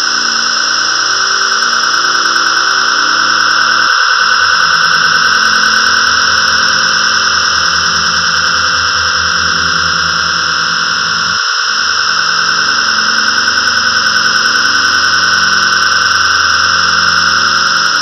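Synthesizer patch "Thunderous Ambience" on its Storm setting, playing a loud, steady stormy noise wash. Low droning tones underneath change abruptly about four seconds in and again about eleven seconds in.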